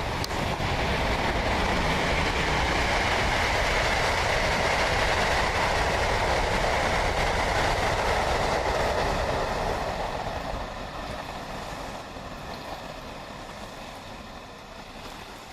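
A train passing close by: its noise builds quickly, holds loud for several seconds, then fades away over the last few seconds.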